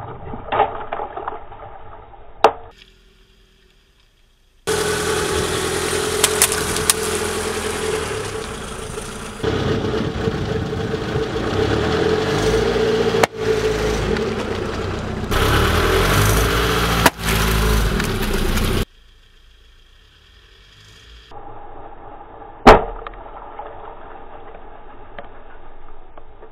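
A car's engine running as its tyre rolls over liquid-filled balloons, with sharp pops and splashes as balloons burst under the tyre in the first couple of seconds and one loud sharp burst a little past two-thirds of the way through. The engine sound is loudest through the middle, where it stops and restarts abruptly several times.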